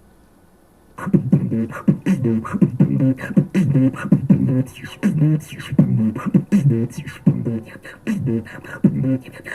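Beatboxing: a rapid run of mouth percussion, with sharp clicks and short hummed, pitched vocal sounds, starting about a second in after a brief hush.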